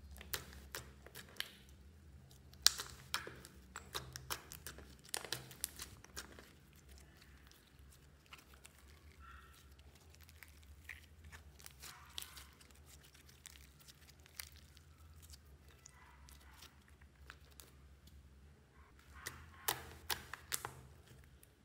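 Hands kneading, folding and pressing a soft pink slime, making sticky clicks and crackling pops, dense in the first few seconds and again near the end, sparser in between.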